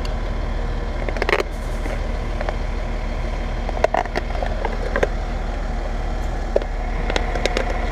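A truck engine running steadily, with a scattering of short sharp clicks and knocks from a plastic animal guard cover being handled and snapped onto a capacitor bushing.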